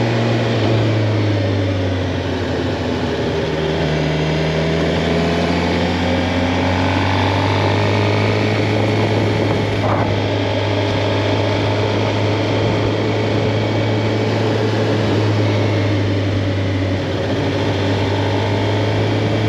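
Suzuki GSX-R750's inline-four engine running on the move, its pitch dipping about a second in and then climbing slowly as the revs build, over a steady rush of wind noise. A single short click near the middle.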